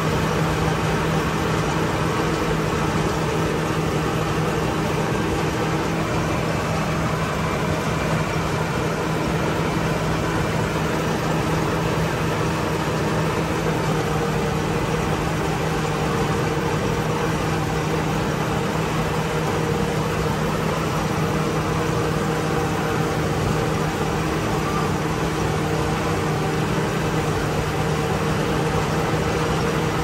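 Rice combine harvester's engine running steadily at a constant speed, with no revving.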